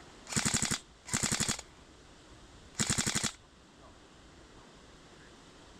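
Airsoft rifle firing three short full-auto bursts of rapid, evenly spaced shots: two in quick succession, then a third about a second and a half later.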